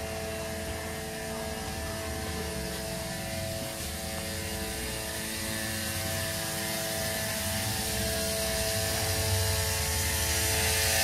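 Small 12 V diaphragm solar water pump (80 W) running with a steady buzzing drone, growing gradually louder.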